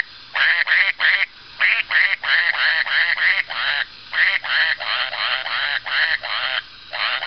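Talking duck puppet toy playing a tune in electronic quacks: quick runs of short pitched quacks, several a second, in phrases with brief pauses between them.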